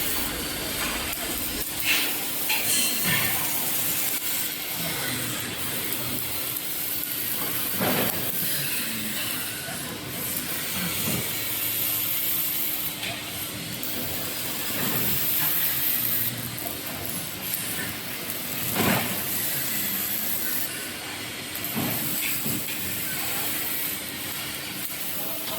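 Robotic arc welding on steel furniture frames: a steady hiss from the welding arc, over a low steady hum, with a few sharp knocks now and then.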